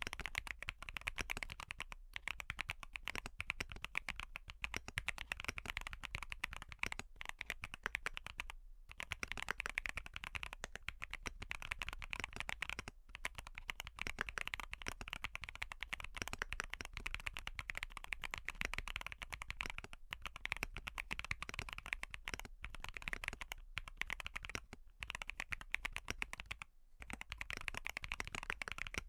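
Fast typing on a Wobkey Crush80 mechanical keyboard with Haimu Sea Wave tactile switches and a full foam build: a dense, continuous stream of key clicks, broken by a few brief pauses.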